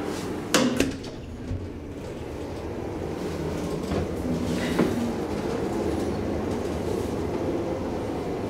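1986 DEVE hydraulic elevator in motion: two sharp clunks about half a second in, then a steady low rumble of the travelling car that slowly grows louder, with a single knock near the middle.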